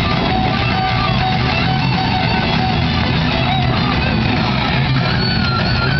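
Rock music with electric guitar, playing at a steady loud level.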